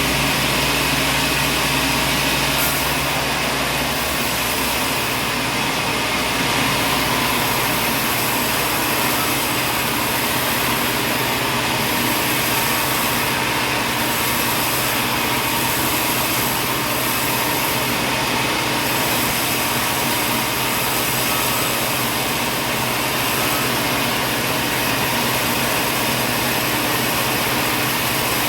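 Sawmill machinery running steadily with a loud, even whirring noise; the low hum underneath changes about four seconds in.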